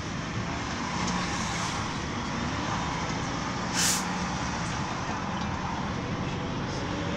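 Mercedes-Benz Sprinter minibus driving through city traffic, heard from inside the passenger cabin: steady engine and road noise, with one short, sharp hiss about four seconds in.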